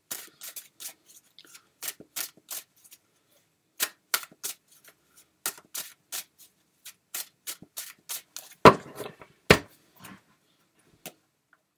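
Tarot deck being shuffled by hand: a run of irregular sharp card clicks, with two louder ones about nine seconds in.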